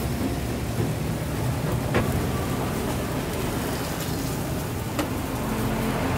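Fish grilling over glowing charcoal: a steady sizzling hiss with a few sharp crackles, one at the start, one about two seconds in and one about five seconds in.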